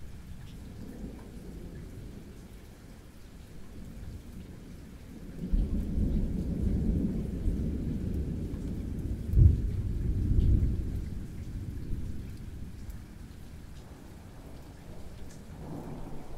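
Thunder rumbling over steady rain: a long deep rumble builds about five seconds in, with its loudest clap near the middle, and fades off. Another rumble starts near the end.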